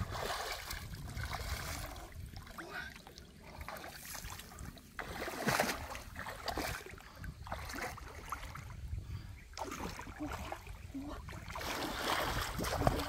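Shallow muddy water splashing and sloshing in irregular bursts as hands grab at fish in it and legs wade through it, louder near the end with the wading.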